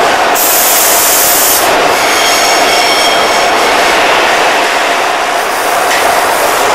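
Long Island Rail Road 3000-series double-deck coaches rolling past close by, a loud steady rush of wheels on rail. A brief high hiss comes about half a second in, and a faint high squeal about two seconds in.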